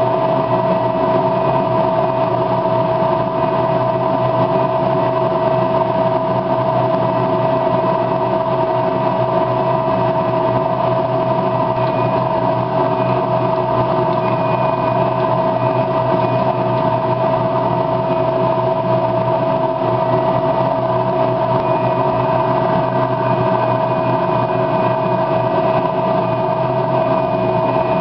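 A steady mechanical hum from a running motor, with one strong even tone and no change in level.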